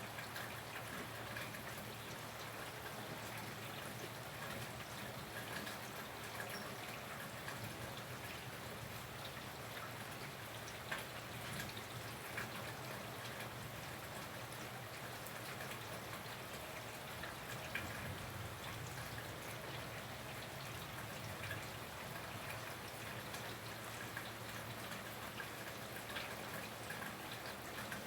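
Steady rain falling, with a few sharper drips standing out here and there.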